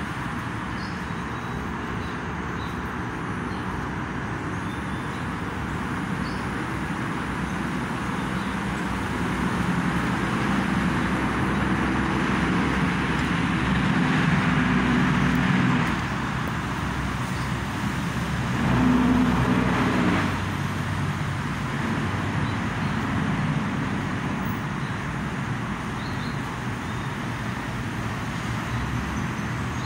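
Road traffic: a steady hum of passing cars that swells for several seconds near the middle, then a single vehicle passes louder briefly about two-thirds of the way in.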